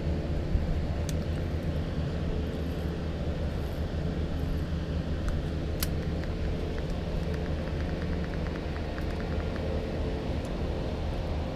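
Steady low engine drone in the background, like distant traffic or an aircraft. There is a sharp click about six seconds in, then a few seconds of faint, fast, even ticking as the baitcasting reel is cranked.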